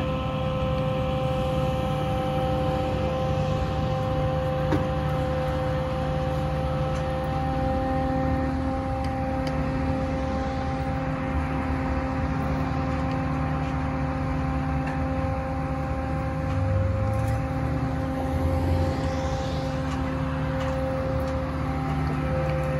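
A barge-mounted knuckle-boom crane's engine and hydraulics run steadily with a constant whine as it hoists a boat lift. The low rumble swells briefly twice about three-quarters of the way through.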